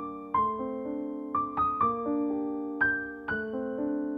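Background piano music: a slow melody of struck notes, each fading away, over held chords, with a new note about every half second.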